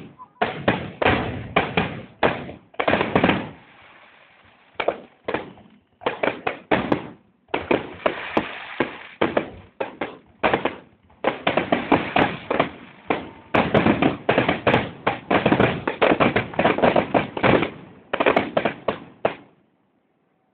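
Fireworks and firecrackers going off in rapid, irregular bangs, with dense rattling volleys of many cracks at once. There is a lull a few seconds in, and the bangs stop abruptly near the end.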